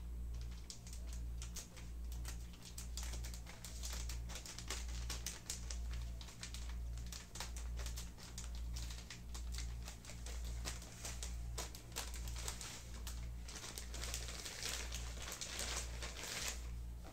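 Clear plastic packaging crinkling and rustling as it is handled and pulled open, with scattered clicks throughout and a denser stretch of crinkling near the end that stops abruptly. A low hum pulses underneath about once a second.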